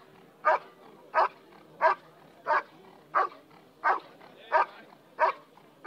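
A German Shepherd's steady hold-and-bark at the blind: loud, evenly spaced barks, about three every two seconds, at the helper hidden inside, the guarding bark of IGP protection work.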